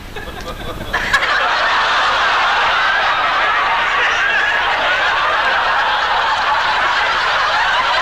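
Studio audience reacting loudly, many voices laughing and crying out at once, starting suddenly about a second in and holding steady.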